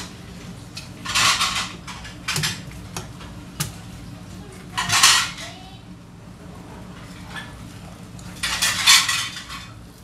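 A whole flounder being handled on a plastic cutting board: a few short rubbing swishes of a cloth and the fish, and several light knocks against the board, over a steady low hum.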